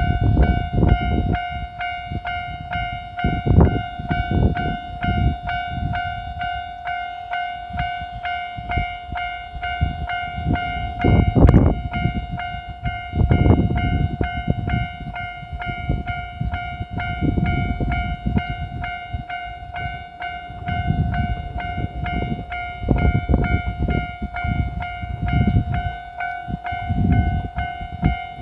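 Japanese level-crossing warning bell ringing its steady, rapidly repeated electronic ding, over irregular low rumbling gusts.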